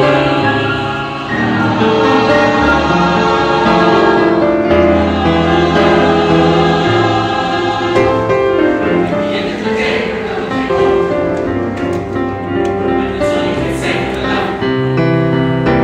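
Mixed-voice youth choir singing sustained chords.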